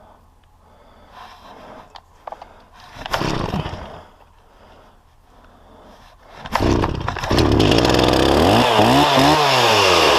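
Stihl 036 two-stroke chainsaw being started: a short burst of sound about three seconds in, then the engine catches about six and a half seconds in and keeps running loudly, its revs dropping and climbing again near the end.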